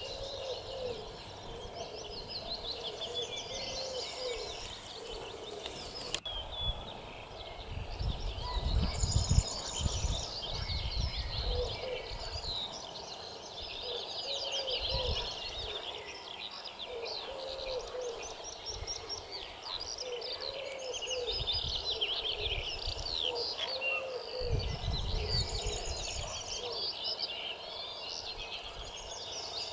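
Many songbirds singing together, a dense overlapping chorus of chirps and trills, with a lower call repeating every couple of seconds. Gusts of wind rumble on the microphone a few times.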